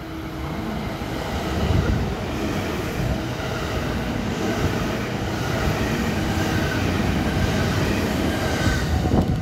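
A JR West 321 series electric multiple unit passing through the station at speed without stopping: the steady running noise of the cars on the rails, swelling about a second in as the train comes alongside and cutting off at the very end.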